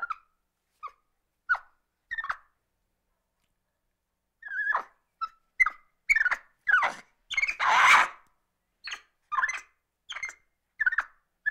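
Monkey calling agitatedly: a string of short, high calls with silences between them, about fifteen in all, and one longer, harsher and louder call about two thirds of the way through.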